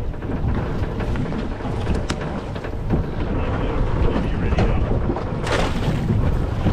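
Boat motor running under way, with wind buffeting the microphone in a steady low rumble.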